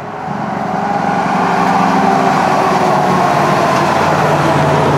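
Tractor-trailer pulling a flatbed trailer drives past on a highway with a pickup truck, noisy: its diesel engine and tyre noise swell over the first second or so and then hold loud and steady.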